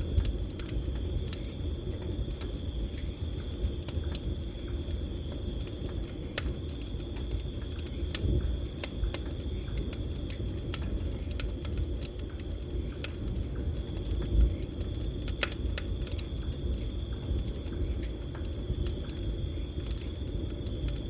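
Campfire crackling with scattered sharp pops over a low rumble of burning, one pop louder than the rest a little past the middle. Crickets keep up a steady high-pitched trill over it.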